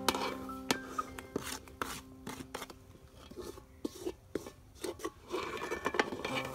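Food being scraped and cut: irregular rasping strokes and sharp clicks of a blade working on food.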